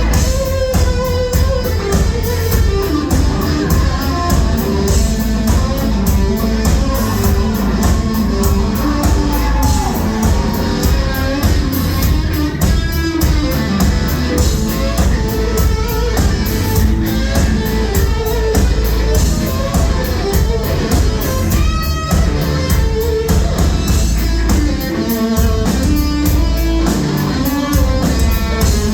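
Live rock band playing loud, with electric guitar over a drum kit.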